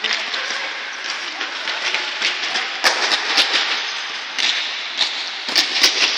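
Futsal play on an indoor court: sharp knocks of the ball being kicked and players' footsteps, coming irregularly and thickest in the second half, over a steady rushing din.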